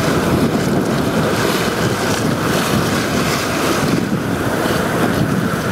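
Steady wind buffeting the microphone over the rush of sea water along a sailing yacht's hull.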